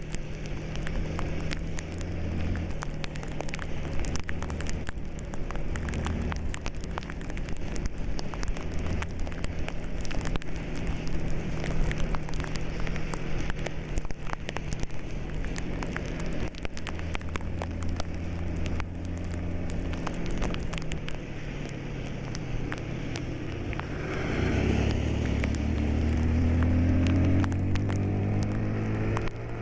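A vehicle engine runs steadily under a dense crackling, rustling noise. About five seconds before the end the engine revs up, its pitch rising for several seconds.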